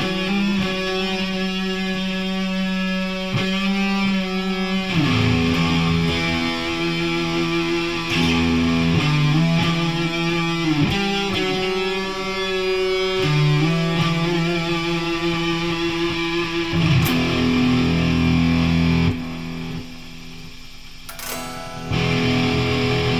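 Electric guitar played through distortion and effects: held, sustained notes that change every second or so. It drops much quieter for about three seconds near the end, then comes back in.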